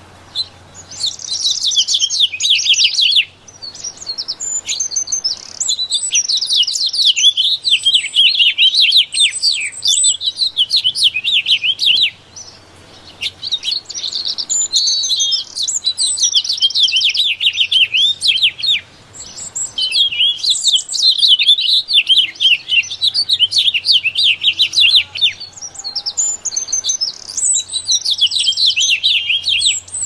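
A songbird singing long phrases of fast, high twittering notes, in about five bouts broken by short pauses.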